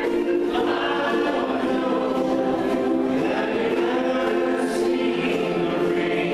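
A group of ukuleles strumming together while many voices sing in unison, like a choir.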